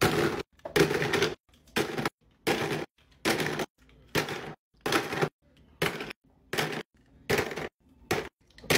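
Small plastic push-button fidget toys clacking as they are set down into a plastic drawer: about eleven short clatters in an even rhythm, roughly one every second, each cut off short.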